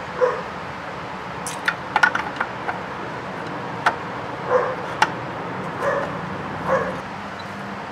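A dog barking in short single yips, about four times, among sharp plastic clicks and knocks from hands working at a car headlight assembly's bulb socket.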